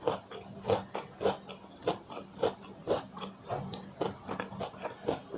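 Close-miked chewing of food in the mouth, with regular mouth noises at about two chews a second.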